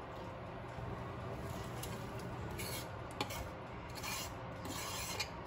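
Metal chopsticks beating eggs in a stainless steel bowl, scraping and clicking against the sides in several short scratchy spells.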